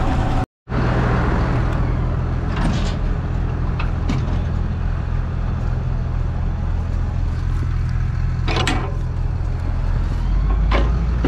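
Farm tractor engine running steadily, with a few sharp knocks and rattles from the machinery. The sound drops out completely for a moment about half a second in.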